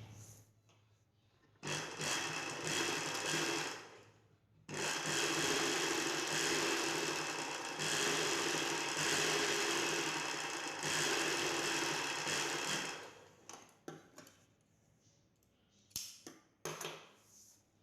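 Sewing machine stitching in two runs: a short run of about two seconds, then after a brief pause a longer steady run of about eight seconds, followed by a few light clicks.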